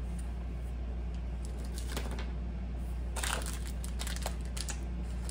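Snack packaging being handled, a few short crinkles and rustles about two seconds in and again between three and five seconds in, over a steady low hum.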